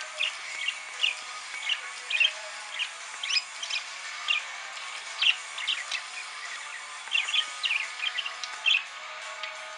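Budgerigar singing: a string of short, sharp chirps and squeaks, irregular, about two a second.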